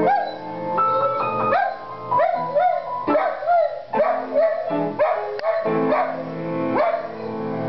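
German Shepherd-type dog howling along to a piano, in short rising-and-falling yowls repeated about twice a second over the piano notes.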